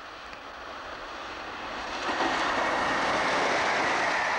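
Class 45 'Peak' diesel locomotive approaching at speed with a passenger train. Its engine grows steadily louder and becomes loud about two seconds in as it passes, with a steady high whine over the rush of the coaches going by.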